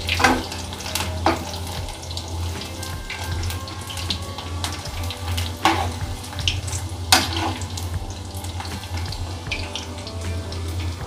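Onion pakoras deep-frying in hot mustard oil in a metal kadhai, the oil bubbling and crackling steadily. A few sharp clinks and scrapes of a steel slotted spoon against the pan as the half-fried fritters are turned over.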